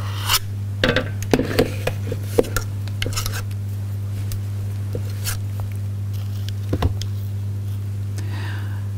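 Metal spoons scraping and tapping against a stainless-steel Thermomix mixing bowl as sticky cookie dough is scooped out. The taps come in a quick cluster over the first few seconds, then singly a couple of times later, over a steady low hum.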